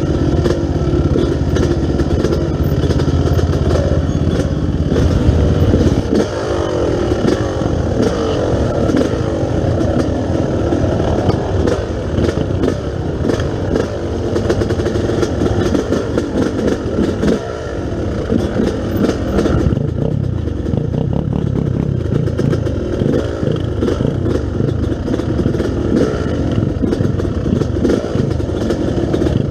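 Yamaha YZ250 two-stroke dirt bike engine being ridden, its pitch rising and falling again and again as the throttle is worked, with knocks and rattles from the bike over rough ground.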